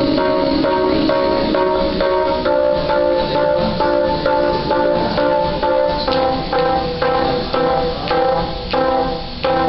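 Live band music without singing: sustained keyboard chords over a steady beat of about two strokes a second, the chord changing about halfway through.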